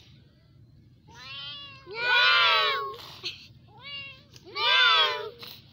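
Kitten meowing four times, each meow rising then falling in pitch. The second and fourth meows are loud and long, and the first and third are softer and shorter.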